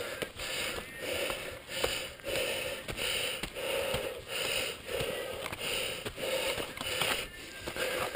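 A mountain biker's heavy, rhythmic breathing while riding, a puff about every half second. Scattered light clicks and knocks from the bike rolling over the dirt trail.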